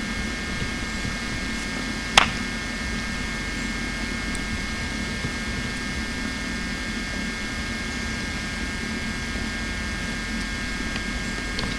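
Steady hiss and hum of an old home-video camcorder recording, with a few faint steady whining tones, and one sharp click about two seconds in.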